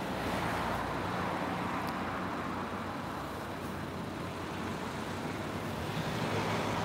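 Steady rumble of road traffic and vehicle engines, with a faint low engine hum underneath.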